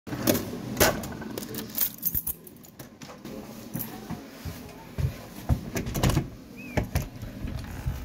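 A run of irregular clicks and knocks, a dozen or so spread unevenly, with a short squeak near the end.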